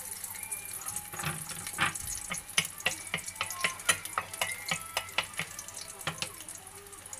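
Chopped garlic frying in a pan with a steady high sizzle. Many sharp ticks and taps come in as it is stirred with a wooden spatula.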